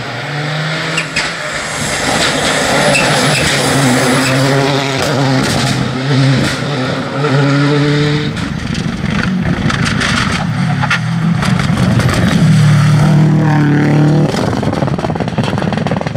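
Rally cars driven flat out on a stage, their engines revving hard, the pitch climbing through each gear and dropping at each upshift, with a few sharp cracks among them.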